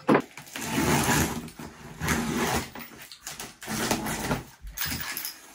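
A large cardboard box set down on a wooden table with a thump, then a box cutter slitting the packing tape and scraping along the cardboard in several strokes.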